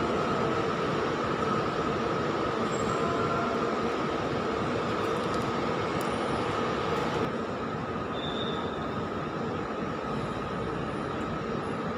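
Steady drone of vehicle engines and machinery in a large terminal hall, carrying two constant humming tones; the upper hiss drops away about seven seconds in.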